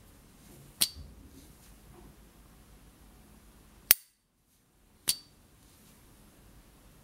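S. T. Dupont Ligne 1 gas lighter's lid snapping: three sharp metallic clicks, about a second in, near four seconds and just after five seconds. The first and last clicks ring briefly with the lighter's high 'ping'.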